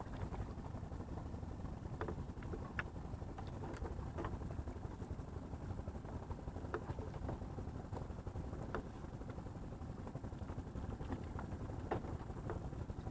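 Steady low rumble of wind and sea, with scattered light clicks and knocks.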